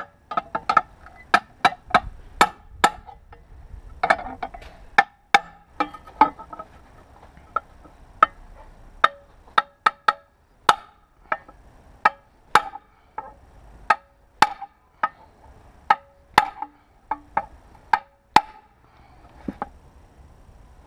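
Hammer blows on a steel angle-grinder guard set over a pipe, shaping it round to fit the grinder's mount. An irregular run of sharp metallic strikes that ring briefly, about two a second, stopping shortly before the end.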